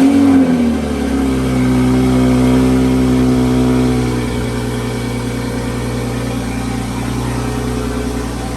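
Toyota Supra's turbocharged inline-six firing up for the first time after a Pure 700 turbo and catless downpipe install: a brief rev flare right at the start that falls within about a second, then a steady idle.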